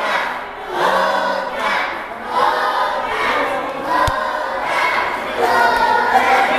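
A crowd of many voices, children among them, chanting together in repeated calls about once a second.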